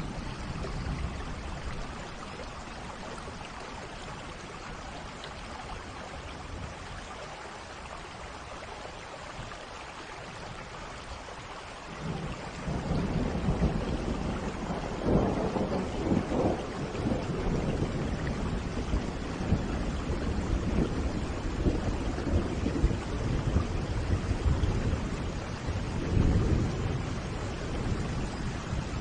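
Steady rain with thunder. The rain gets louder about twelve seconds in, and thunder rumbles twice: a few seconds later and again near the end.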